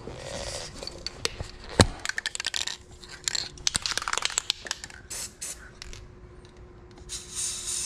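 Clicks and knocks of spray-paint cans being handled on a wooden workbench, with one sharp knock about two seconds in. Near the end comes a hiss of Krylon Fusion aerosol paint being sprayed onto the water for hydro dipping.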